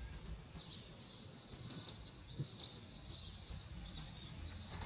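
Outdoor forest ambience: a steady run of high chirping calls from small animals, over a low rumble, with a single soft knock about halfway through.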